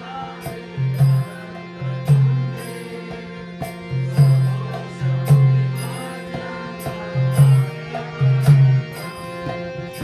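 Harmonium and mridanga playing an instrumental interlude of a devotional chant. The harmonium holds sustained reedy tones under a melody line, while the mridanga sounds deep bass strokes and sharper slaps in a steady rhythm.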